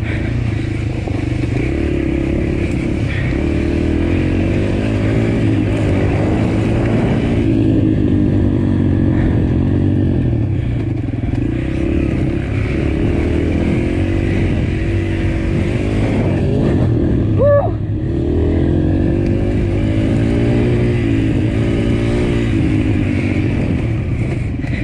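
Dirt bike engine ridden hard on a rough wooded trail, its revs rising and falling over and over as the throttle is worked. A brief high squeal comes about two-thirds of the way in.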